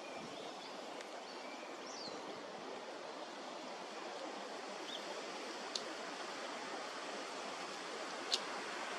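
Steady outdoor rushing noise like running water, with a few faint, short, high bird chirps early on and two sharp high ticks in the second half.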